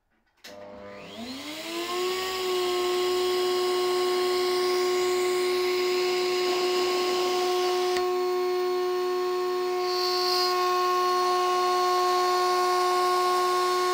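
Table-mounted router motor starting up, its whine rising in pitch over about two seconds, then running at a steady high speed.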